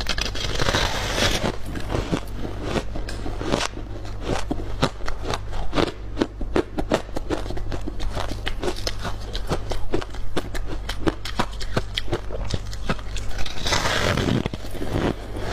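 Crunching of freezer frost chunks being bitten and chewed: dense, irregular crisp crackles over a steady low hum, with louder scraping noise about a second in and again near the end.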